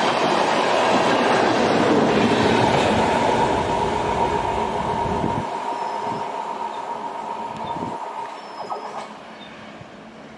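Passenger coaches of an express train rolling past close by, their wheels rumbling on the rails with a steady high squeal. The rumble stops abruptly about five seconds in, and the remaining sound fades as the train moves away.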